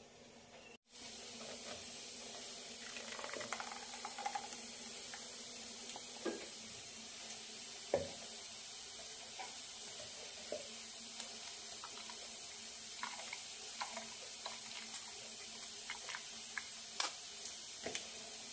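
Light, scattered clinks and scrapes of a steel ladle against a stainless mesh strainer as blended coconut paste is pressed to strain out coconut milk, with faint trickling of the liquid, over a steady low hiss.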